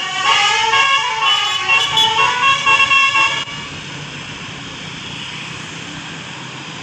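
Bus telolet horn of the 'basuri' kind playing a quick multi-note melody, the notes stepping up and down. About three and a half seconds in it breaks off abruptly, and steady vehicle engine and road noise takes over.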